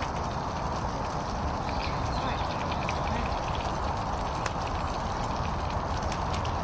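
Camping stove running steadily under a frying pan, with scattered faint crackles of food frying.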